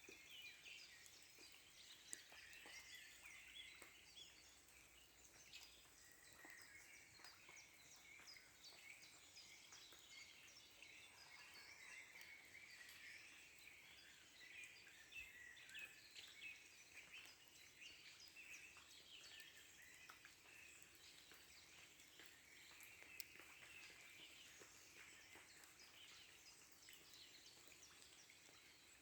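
Faint chorus of several songbirds singing, with many overlapping short chirps and trills.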